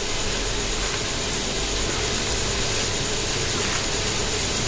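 Steady background hum and hiss with a faint constant tone, unchanging throughout and with no distinct knocks or clicks.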